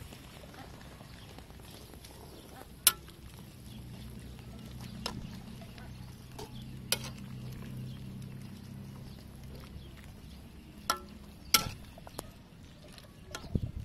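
A metal ladle stirring soup and greens in a stainless steel pot, clinking sharply against the pot about six times at irregular intervals. A faint low hum rises and falls in the background through the middle.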